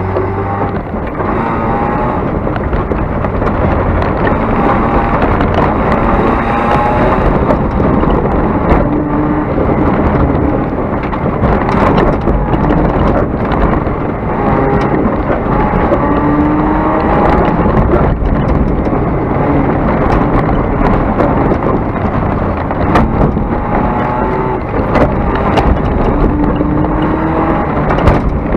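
Car engine accelerating hard on a dirt course, heard from inside the cabin: its pitch rises again and again through the gears under a steady rush of tyre and wind noise, with frequent sharp clicks and knocks.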